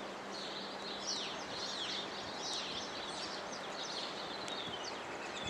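Birds chirping, many short falling calls one after another, over a steady background hiss.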